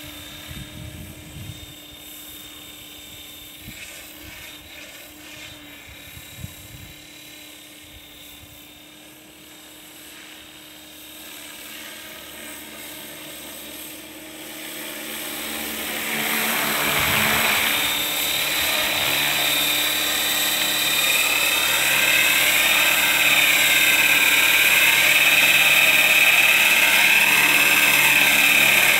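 Radio-controlled model helicopter's motor and rotor whine, faint while it flies at a distance, then growing loud over a few seconds about halfway through as it comes in to hover low over the grass. Near the end the pitch wavers up and down.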